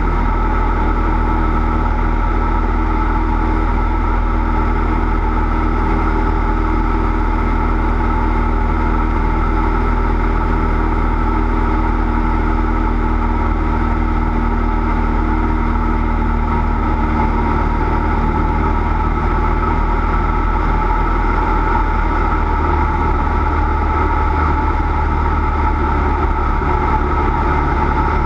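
Cessna 172's single piston engine and propeller running steadily, a loud unbroken drone with a slight shift in its low hum about two-thirds of the way through.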